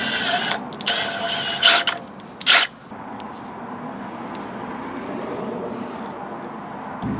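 Milwaukee Fuel cordless drill driving a screw into a threaded hole in two short whirring runs, the second ending just before two seconds in. A brief loud noise follows about half a second later.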